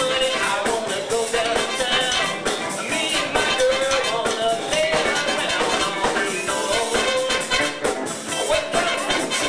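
Live blues band playing: electric guitars, saxophones and a drum kit keeping a steady beat, with bending melodic lines from the guitar or horns.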